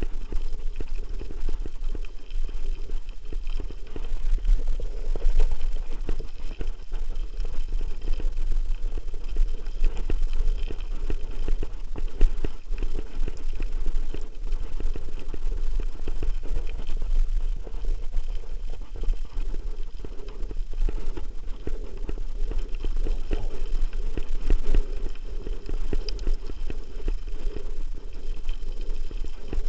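Mountain bike rolling over a loose gravel track: a dense, irregular rattle and crunch of tyres on stones and the bike-mounted camera shaking, over a steady low rumble.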